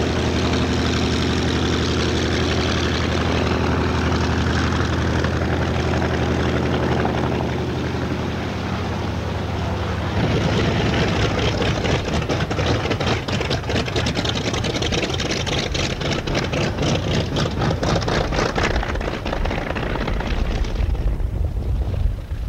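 Douglas A-1 Skyraider's 18-cylinder Wright R-3350 radial engine running at low power while the aircraft sits and taxis: a steady, deep, even drone. About ten seconds in the sound turns rougher and more uneven, with a rapid fluttering beat.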